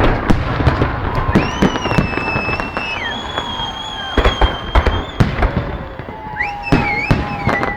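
Fireworks salute going off: a dense series of sharp bangs and crackles, with long high whistles held over them for a few seconds in the middle and again near the end.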